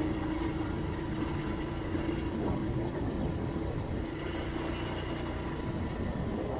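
Motorcycle engine running steadily at cruising speed, with its hum dipping for a moment mid-way, over a low rumble of wind and road noise.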